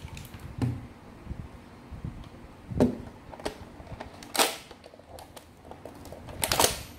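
Plastic dart clip magazine for a Nerf blaster being handled: a string of short, irregular plastic clicks and knocks. Two louder, short scraping rasps come about four and a half seconds in and near the end.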